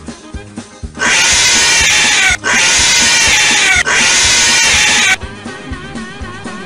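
Cat yowling loudly in three long stretches during a scuffle with another cat, starting about a second in and stopping near five seconds. Background music with a steady beat runs underneath and carries on alone at the end.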